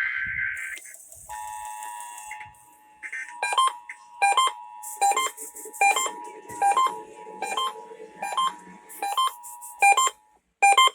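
Emergency Alert System test tones. The tail of a SAME data-header burst ends about half a second in. Then the steady two-tone EAS attention signal (about 853 and 960 Hz) sounds, overlaid from about three seconds in by short sharp beeps repeating about every half second, and cuts off near the end.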